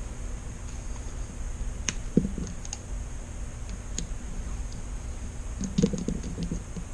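Vinyl electrical tape being pulled off the roll and wrapped tightly around a LiPo battery pack held in a vise: scattered clicks and crackles, busiest about six seconds in, over a steady background hum.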